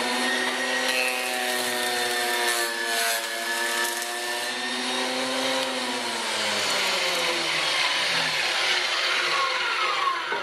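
Fujiyama PP9012 benchtop thickness planer running loud, its motor whine mixed with the rush of the cutterhead shaving a pine board as it is fed through. The pitch dips in the middle of the pass and recovers, and the sound begins to fall away at the very end.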